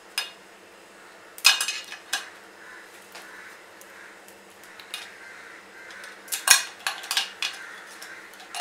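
Freshly set, slightly cooled sesame chikki (sugar-and-sesame brittle) being snapped into pieces by hand, sharp cracks with pieces clicking against a metal plate. The cracks come in two quick clusters, about a second and a half in and again about six and a half seconds in, with single snaps between.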